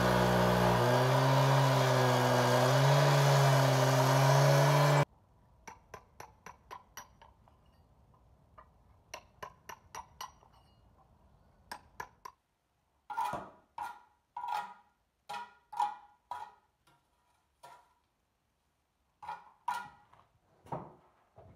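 Two-stroke petrol cut-off saw cutting through brick, its engine pitch wavering under load, stopping abruptly after about five seconds. Then a run of light sharp taps and clicks, followed by louder ringing knocks and scrapes near the end as a trowel works mortar in a steel wheelbarrow.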